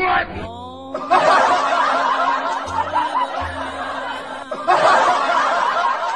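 Laugh-track sound effect: a group snickering and chuckling in two bursts that cut in abruptly, over light background music, after a short falling glide at the start.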